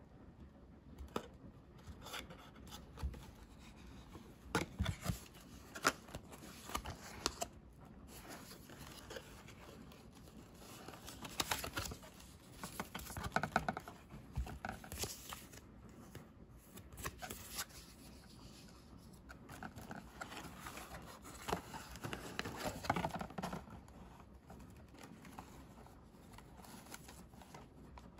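Hands handling cardboard packaging and a paper leaflet: soft irregular rustling and scraping of card and paper, with scattered light taps and clicks.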